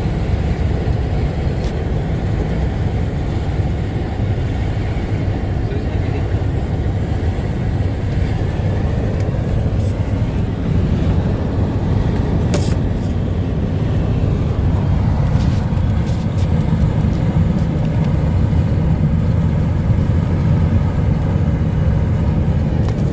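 Steady engine and road noise of a vehicle driving, a continuous low rumble with a few faint clicks.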